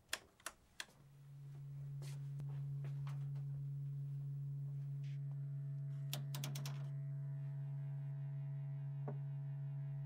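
Three sharp clicks of toggle switches being flipped on an electronic instrument panel, then a low steady electric hum fades in over about two seconds and holds as the equipment powers up. A quick flurry of key clicks comes about six seconds in, and a single click later on.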